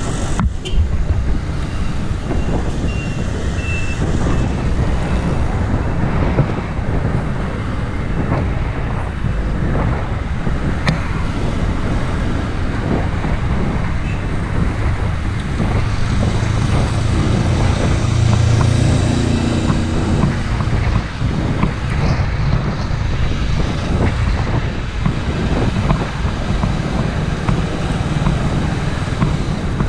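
Wind noise on the microphone of a moving bicycle, with road traffic going by; a passing vehicle's engine hum grows louder for a few seconds just past the middle.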